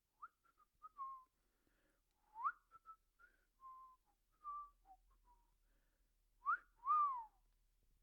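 A person whistling a loose run of short notes, some flicking quickly upward and some held briefly. Near the end comes a sharp rising whistle, then a longer, louder one that rises and falls away.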